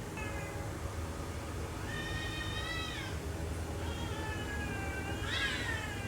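Domestic cats yowling at each other in a quarrel: a series of long, drawn-out wavering calls, the last one rising and then falling near the end.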